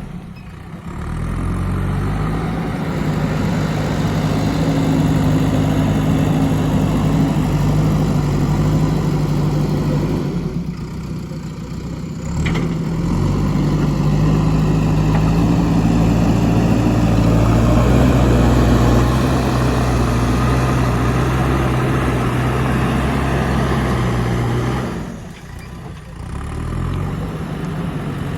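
JCB 3DX backhoe loader's diesel engine revving up and holding high revs, falling back twice and picking up again, with a single sharp knock near the middle.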